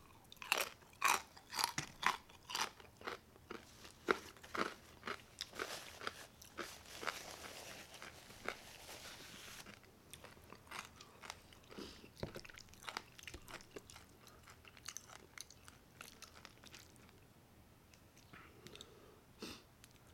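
A mouth biting and crunching deep-fried pork skin (chicharrón), with a quick run of loud, sharp crunches for about the first ten seconds, then softer, sparser chewing.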